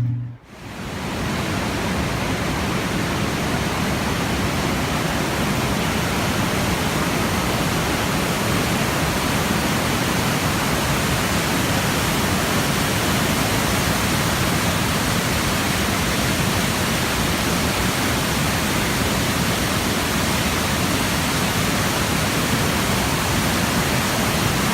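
Waterfall at peak flood flow: a steady, full rush of falling water that fades in during the first second.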